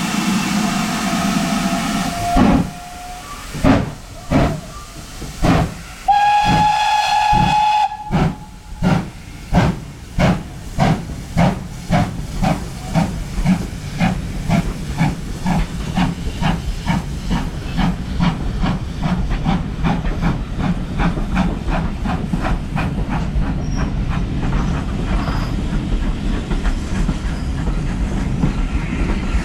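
GWR 5101-class 'Large Prairie' tank steam locomotive 5199 pulling away. Steam hisses at first, then slow, separate exhaust chuffs begin. A whistle blast of about two seconds comes some six seconds in, and the chuffs then quicken into a steady rapid beat as the train gathers speed.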